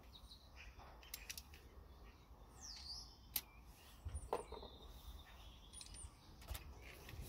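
Faint birds chirping, with a few sharp clicks.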